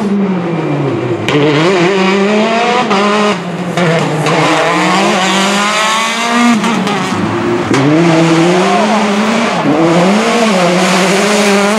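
Rally car engines at full throttle, Citroën DS3s among them, passing one after another. The pitch rises hard through each gear and drops sharply at every shift, several times over.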